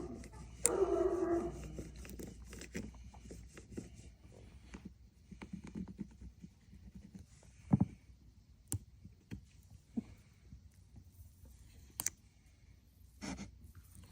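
A dog gives one short whine about a second in, followed by scattered light taps and clicks.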